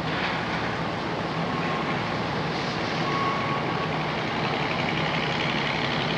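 A crawler tractor's engine running steadily with a low hum, under the hiss of an old 8mm film soundtrack.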